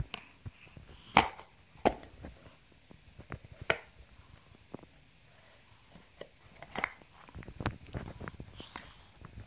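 Scattered sharp knocks and clicks: the loudest about a second in, others near two, four and eight seconds, and a run of smaller taps and rustles near the end.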